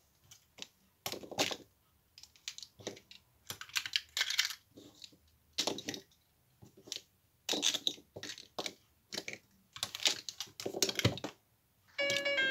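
Loose plastic pieces of a disassembled 3x3 Rubik's cube being handled on a cube mat and snapped together: irregular sharp clicks and short clatters, like typing. Music starts near the end.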